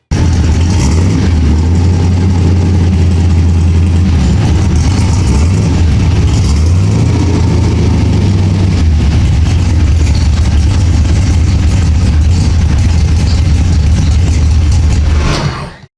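Chevy LUV rat rod pickup's engine running loud and steady, with one brief rev about seven seconds in before it settles back.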